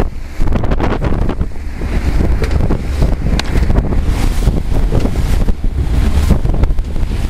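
Loud wind rumble buffeting the microphone, over the rush and splash of water and spray as a motorboat drives through choppy sea.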